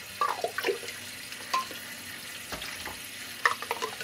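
Water being poured into a plastic toy-track basin, splashing and gurgling, with a few short splashes scattered through.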